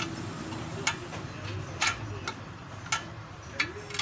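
Short sharp metal clicks, about one a second, as a wrench works the nut on the threaded rod of a clamp tool at a car's front brake.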